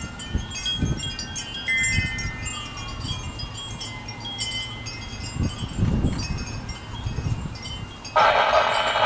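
Wind chimes ringing irregularly in gusty storm wind, with wind rumbling on the microphone. Near the end a loud sound about a second long cuts in over the chimes.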